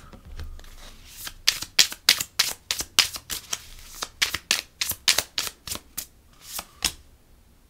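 Tarot cards being shuffled by hand: a run of quick, crisp card slaps and clicks, about three a second, which stops shortly before the end.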